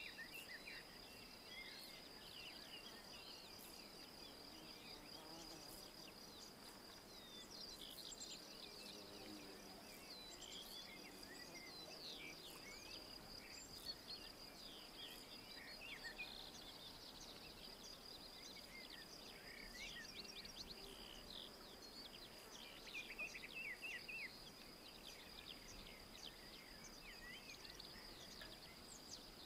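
Faint woodland birdsong, short quick falling chirps and brief phrases scattered throughout, over a steady high-pitched insect drone.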